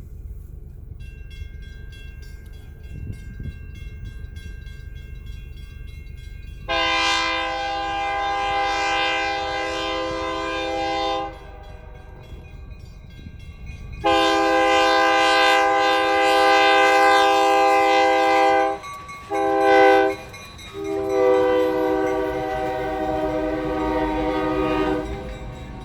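Great Lakes Central Railroad locomotive's multi-tone air horn sounding the grade-crossing signal: two long blasts, one short, then a final long one. The low rumble of the train runs underneath.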